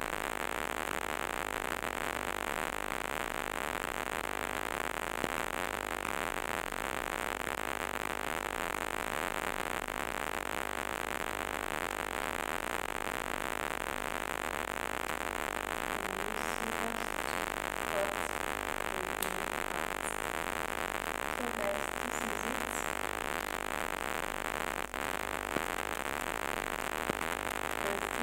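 Steady background hiss with no distinct event in it.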